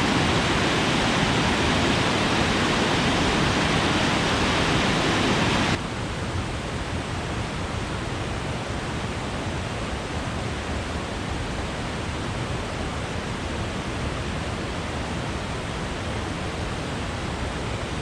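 Steady rushing of a waterfall, an even wash of noise that drops suddenly to a quieter level about six seconds in.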